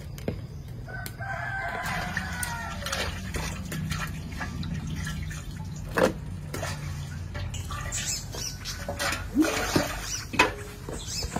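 A rooster crowing about two seconds in, with clucking later on, over the wet sounds of intestines being washed by hand. There is a sharp knock about six seconds in, and water splashes as it is tipped out of a metal basin near the end.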